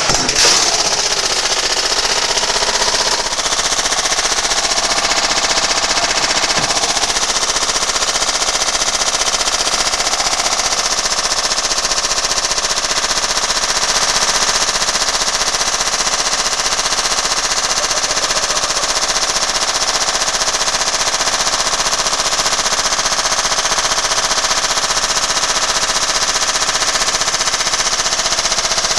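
Washing machine shaking itself apart on a violent spin: a loud, steady racket of rapid banging and rattling from the drum and cabinet.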